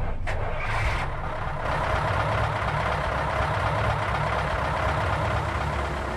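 A steady low rumble with a hiss above it, after a few sharp knocks in the first second or so.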